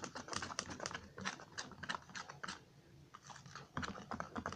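Spoon stirring a sticky slime mixture in a bowl: a quick, irregular run of small clicks and wet ticks, with a pause of about a second just before the end.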